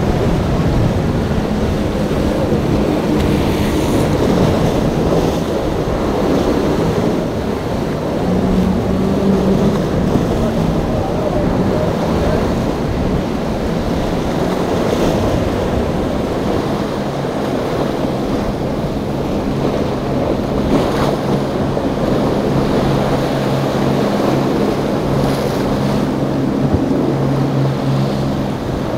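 Motorboat engines running hard through rough inlet water, a steady low drone under the rush of breaking waves and spray, with wind buffeting the microphone. The engine hum is strongest in the second half.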